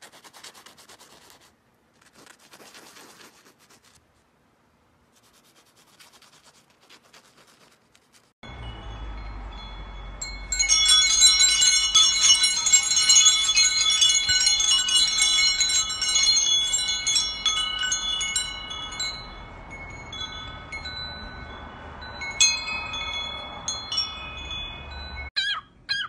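Small metal chimes jingling and ringing, loudest for several seconds and then thinning to scattered rings, over a steady low hum. Faint scratching comes before them in the first third.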